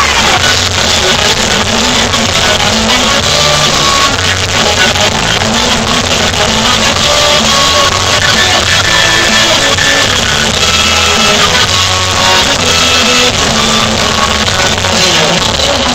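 Live band playing loud amplified music with electric bass, guitar and drums, steady and without a break.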